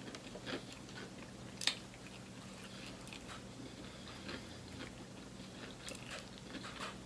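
Close-miked chewing and biting of crispy fried food, with scattered small mouth clicks and one sharper crunch about one and a half seconds in.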